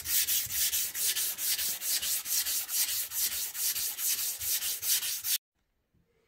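Hand sanding of a linen micarta knife handle: abrasive paper on a sanding stick rubbed back and forth in quick, even, hissing strokes, about four a second, that stop suddenly near the end.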